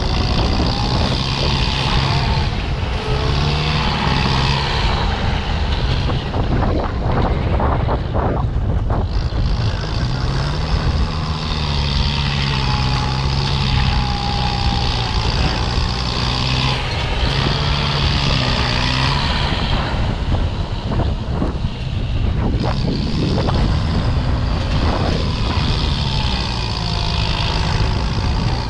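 Farm tractor's diesel engine working hard while pushing soil, its note rising and falling with the throttle, with a wavering high whine coming and going and a few clanks about a quarter of the way in.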